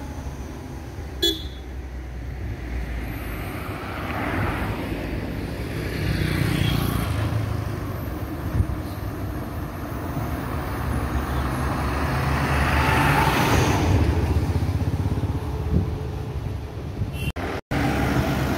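Road traffic passing close by: lorries, cars and a bus, their engines swelling and fading as each goes past, with a vehicle horn honking among them. The sound cuts out briefly near the end.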